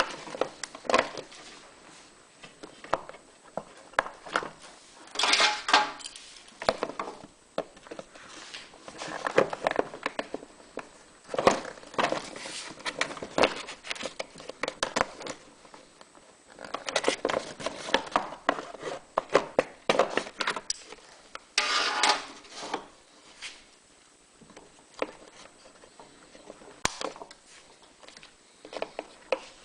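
Hand-trimming of the plastic webbing inside a generator's plastic cover: irregular clicks and knocks of a hand tool on hard plastic, with several bursts of scraping about a second long.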